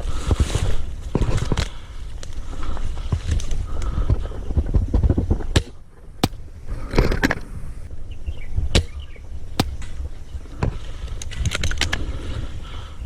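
A player moving on foot through brush: footsteps and leaves and branches rustling, with low rumbling handling noise on the microphone and a handful of sharp snaps or cracks.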